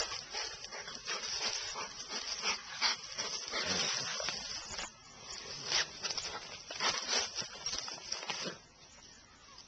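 American Staffordshire terrier snuffling and scratching at the ground while hunting mice: a run of irregular short, noisy sniffs and scrapes that dies down near the end.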